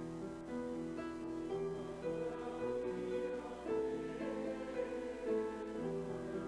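A hymn: instrumental accompaniment playing held chords that change about every half second, with a congregation of voices singing along.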